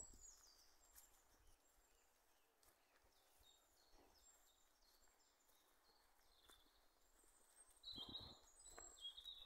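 Faint woodland birdsong: small birds chirping in short, high notes scattered throughout, with a couple of louder rustling steps in dry leaf litter about eight seconds in.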